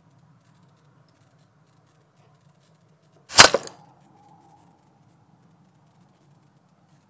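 A single shot from a Reximex Accura pre-charged pneumatic air rifle, a sharp crack about three seconds in, followed a fraction of a second later by a smaller second crack.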